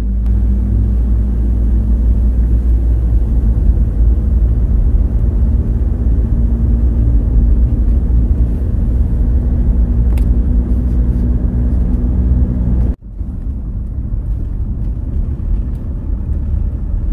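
Road and engine noise inside a moving car's cabin: a steady low rumble with a faint hum. It breaks off abruptly about thirteen seconds in, and a quieter, rougher rumble follows.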